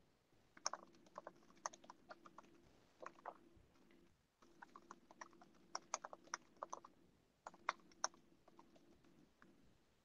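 Faint typing on a computer keyboard: irregular runs of keystrokes with short pauses, as a few lines of code are entered.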